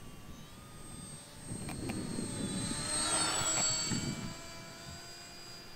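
Brushless electric outrunner motor (FMS 3015 KV1700) and propeller of an 800 mm T-28 Trojan RC plane whining in flight. It grows louder as the plane passes about three seconds in, and its pitch drops slightly as it goes by. Wind rumbles on the microphone underneath.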